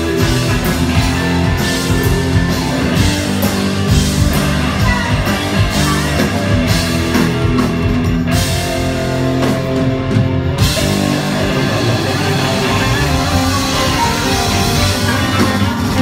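Live rock band playing loud: electric guitar and drum kit with a singer.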